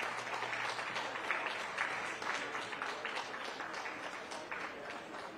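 Audience applauding, the clapping thinning out over the last couple of seconds.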